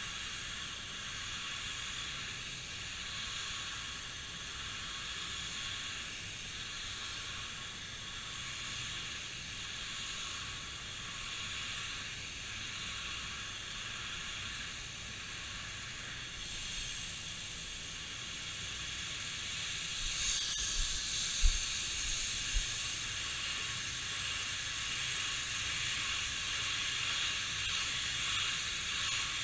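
Gravity-feed paint spray gun hissing steadily as compressed air atomises primer, swelling and easing slightly as it sweeps. A few short low thumps come about two-thirds of the way through.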